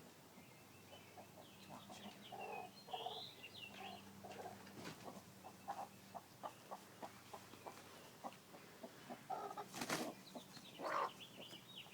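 Broody hen clucking and chirping quietly, with scattered small taps and a sharp flurry about ten seconds in.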